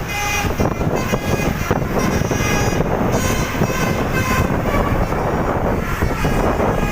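Bus 'telolet' air horn playing a run of musical tones that step from one pitch to another every half second or so over the first few seconds, above loud engine and road rumble from passing traffic.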